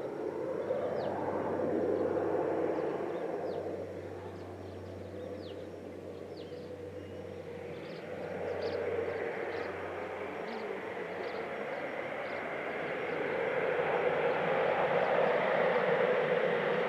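Air Tractor AT-602 crop-spraying plane's Pratt & Whitney PT6A-60AG turboprop engine passing low. Its sound swells about two seconds in, fades, and then builds again towards the end as the plane comes back.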